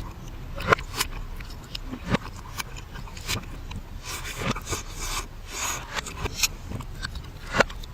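Mukbang eating sounds played backwards: irregular sharp clicks and noisy crunching and smacking of chewing.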